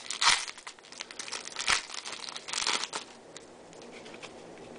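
Foil wrapper of a Topps baseball card pack being torn open and crinkled, in three short bursts over the first three seconds.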